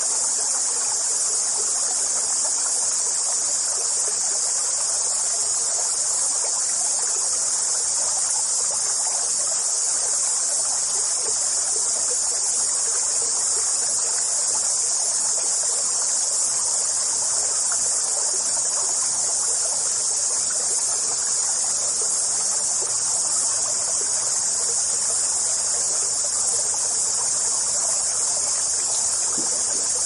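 A steady, high-pitched chorus of insects over the even rush of running stream water, unbroken throughout.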